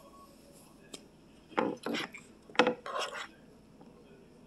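Metal spoon scraping against a bowl while scooping fried rice: a faint click about a second in, then a few short scrapes.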